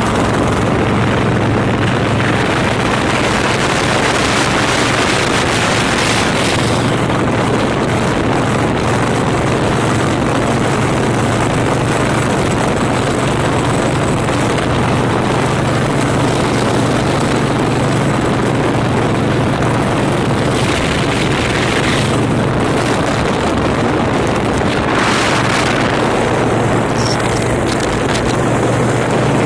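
Motorcycle engines running steadily at cruising speed, with heavy wind rush on the microphone.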